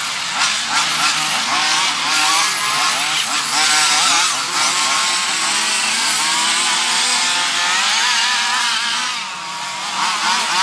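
Several radio-controlled racing buggies' small two-stroke engines running at high revs and overlapping, each pitch rising and falling as the cars accelerate and back off. The sound dips briefly a little after nine seconds in.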